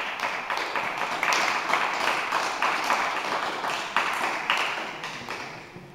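A small crowd applauding: dense clapping that starts suddenly and dies away over the last second or so.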